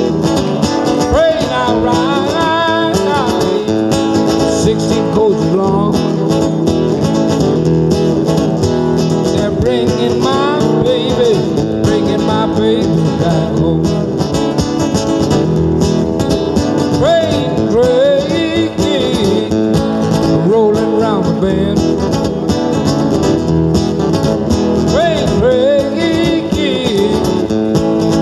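Nylon-string acoustic guitar played solo live: an instrumental break of plucked notes and gliding lines between sung verses.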